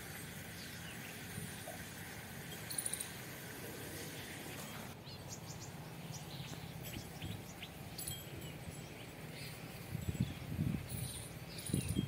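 Outdoor ambience: a steady background hiss with scattered faint high chirps, and some irregular low rumbling near the end.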